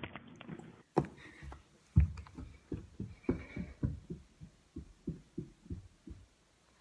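Footsteps of a child in socks running up a carpeted staircase: quick dull thuds, about three a second, growing fainter as he climbs, after a single knock about a second in.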